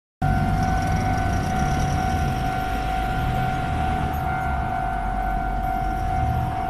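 Japanese railway level-crossing alarm sounding a steady electronic tone, over the low rumble of passing vehicles.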